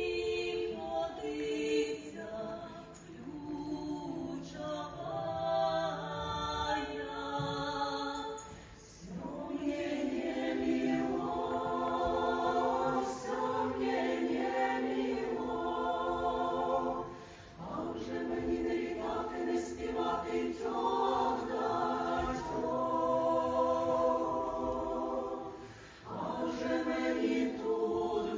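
Folk choir singing an old Ukrainian kant in several-part harmony, phrase by phrase with short breaks between phrases. The opening phrase is lighter, and the full harmony comes in about nine seconds in.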